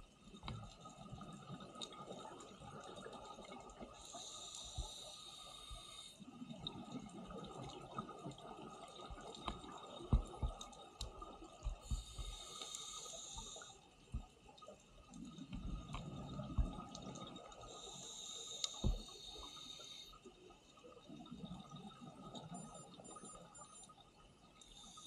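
Scuba regulator breathing underwater, played at double speed. A hiss of exhaled bubbles comes about every six to eight seconds, with a lower rush of breathing in between, over scattered faint clicks.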